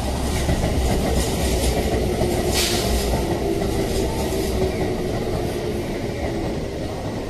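Keikyu Series 600 electric commuter train running past on an elevated track: a steady rumble of wheels on rail with a faint steady whine, and a brief hiss about two and a half seconds in.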